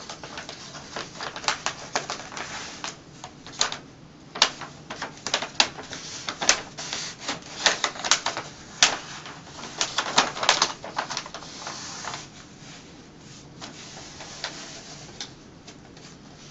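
Wax-paper backing crinkling and crackling as it is peeled off an adhesive vinyl wall mural and handled: irregular sharp crackles, thickest through the middle and thinning out after about twelve seconds.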